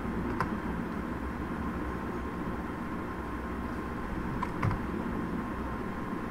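Steady background hiss and low hum with a faint steady tone, under a few computer keyboard keystrokes: one just after the start and two in quick succession about four and a half seconds in, as a menu choice is typed and entered.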